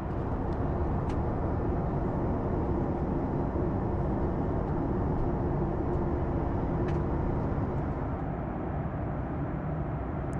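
Steady cabin noise of a Boeing 737 MAX 8 airliner in cruise: an even rush of airflow with a low steady hum, and a couple of faint clicks.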